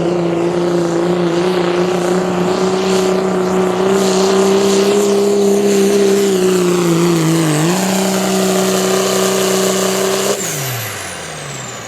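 Pulling truck's engine held at full throttle as it drags the sled down the track, a steady high-rpm drone that sags briefly and recovers. Near the end the throttle is chopped and the revs fall away.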